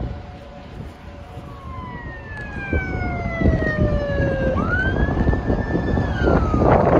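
A siren wailing: its pitch falls slowly, sweeps sharply up about two-thirds of the way through, holds, then falls again. Wind rushes and buffets on the microphone throughout, louder near the end.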